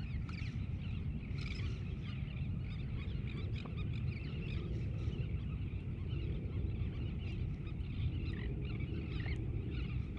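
A flock of birds calling and chattering continuously, many short calls overlapping, over a steady low rumble.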